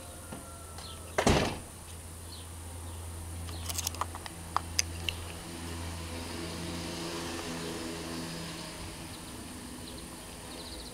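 Handling noise from a 35 mm film camera being turned in the hands: one loud knock about a second in, then a few light clicks between about four and five seconds. Under it a low motor hum runs steadily, swelling in the middle.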